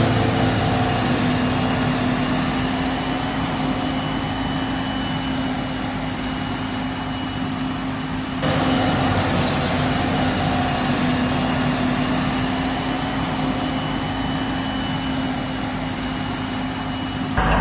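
Krone Big X V12 self-propelled forage harvester running steadily at work while chopping maize: a constant low engine-and-chopper hum under a broad rushing noise, with a thin steady high whine on top. The level steps up slightly about halfway through.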